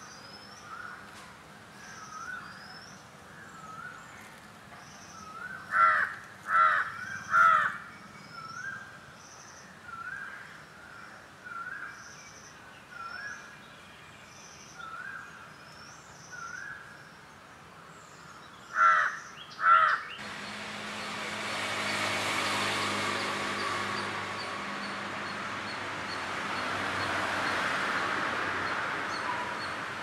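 Birds calling: a short rising call repeated every second or so, broken by loud harsh caws, three in a row about six seconds in and two more near twenty seconds. About twenty seconds in, a steady noisy rumble with a low hum abruptly takes over.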